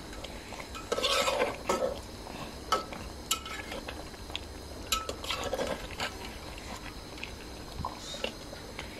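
Metal spoon stirring and scraping beef pieces in a thick sauce in a metal cooking pot, with sharp clinks of the spoon against the pot, in several bursts. The meat is being browned (kosha) while its liquid cooks off.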